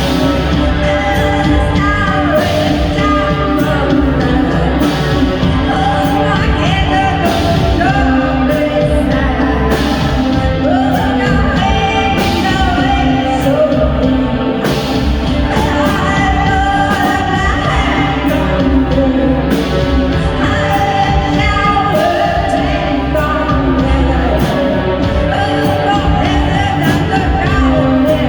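Live band playing a song with a singer's sustained vocal line over bass and drums, with a regular drum beat, in a large room.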